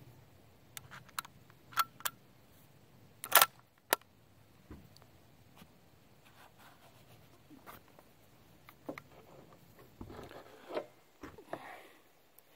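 Sharp metal clicks and knocks of a rifle being handled and loaded with a cartridge, the loudest about three seconds in. Soft rustling and bumps follow near the end.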